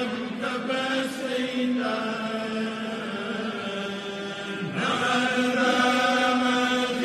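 Islamic devotional chanting: voices holding long, drawn-out notes, shifting to new notes about two seconds in and again near five seconds.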